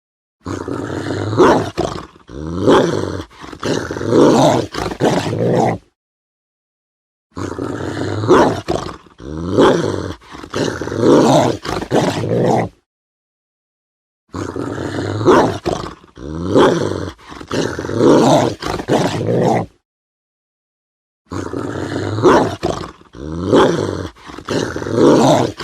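Large dog growling aggressively in rough, deep bouts. The same growl of about five seconds plays four times, with silences of about a second and a half between.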